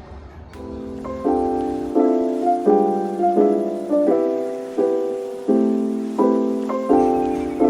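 Lo-fi background music: mellow piano chords struck in a steady repeating pattern, fading in within the first second.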